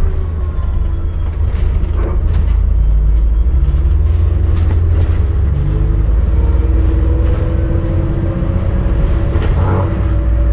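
ADL Enviro400 MMC hybrid double-decker bus in motion: a steady low drivetrain rumble with a whine from the hybrid drive that falls in pitch early on and then slowly climbs again, and a few rattles and knocks from the body.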